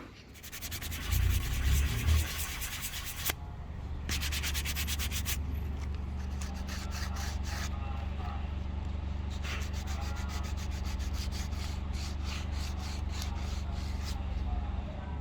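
Rosewood axe handle being sanded: a rhythmic rasping of abrasive on wood over a steady low hum, starting about a second in and coming in several stretches.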